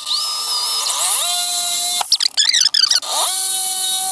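DeWalt drill with a quarter-inch bit drilling out the rivet of a hatch-strut bracket: the motor spins up to a steady whine, breaks into a rough, wavering stretch about two seconds in, then spins up again and runs steady.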